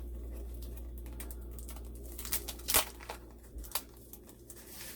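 Paper and packaging rustling and crinkling as craft items are handled, with a few sharp crackles, the loudest a little under three seconds in.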